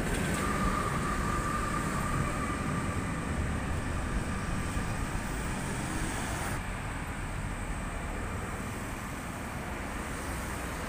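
Tatra tram rolling past close by and drawing into the stop, its rumble fading as it slows. A high steady whine sounds over it for the first few seconds and dies away, with street traffic noise underneath.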